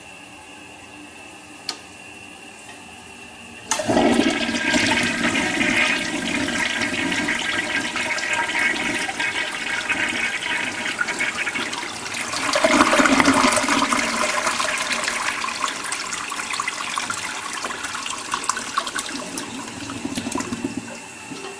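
Vintage Kohler toilet flushing: after a light click, a sudden rush of water starts about four seconds in, surges again about halfway through, then slowly eases off.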